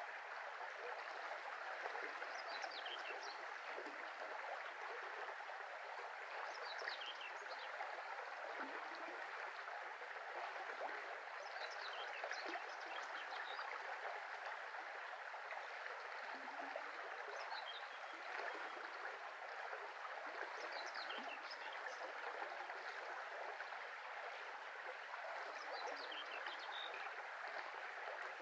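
Shallow brook flowing steadily, an even rush and gurgle of water. Short, high bird chirps come through every few seconds.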